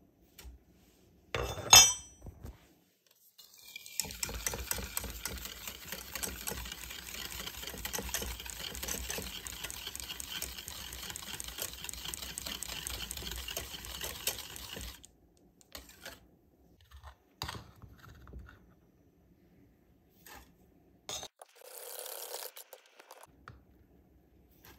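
Wire whisk beating melted butter and chocolate powder in a stainless steel saucepan: a fast, continuous scraping rattle of metal wires against the pan lasting about eleven seconds. It is preceded by one sharp metal clink, the loudest sound, and followed by a few light clicks and a short scrape.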